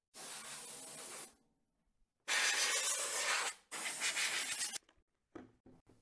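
Compressed-air blow gun on an air hose, blasting three times for about a second each, the second and third louder than the first. A couple of faint knocks follow near the end.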